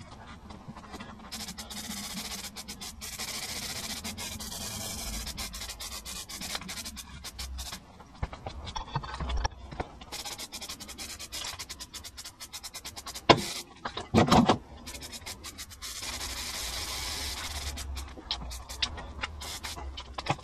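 Aerosol can of epoxy primer spraying in long hissing passes of a few seconds each, with short clicks and rattles between, and two loud knocks about two-thirds of the way through.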